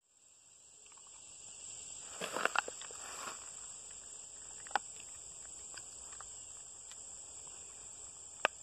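Steady high-pitched insect chorus, like crickets, running through, with a patch of rustling and clicks about two to three seconds in and single sharp clicks about halfway and near the end, as a cat walks on and sniffs along a rotting log.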